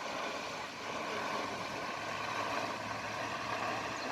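Steady rushing splash of a garden fountain's water jets, with a low steady hum joining about a second in.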